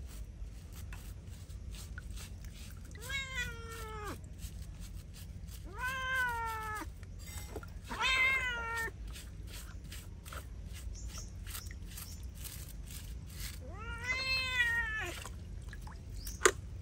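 Young tabby cat meowing four times in protest while being bathed, each meow about a second long, rising and then falling in pitch. A sharp click sounds near the end.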